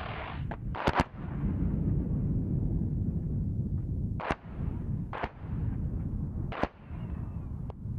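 Cluster bomb submunitions detonating over armour targets: a quick pair of sharp cracks about a second in, then three single cracks about a second apart, over a steady low rumble.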